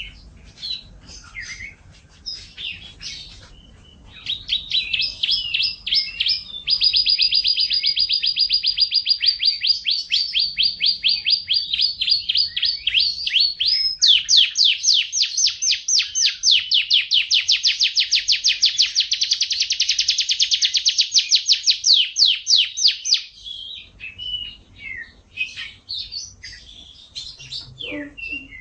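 Domestic canary singing: scattered chirps, then a long run of rapid, evenly repeated trills that switch to a new trill pattern twice, before breaking back into scattered chirps near the end.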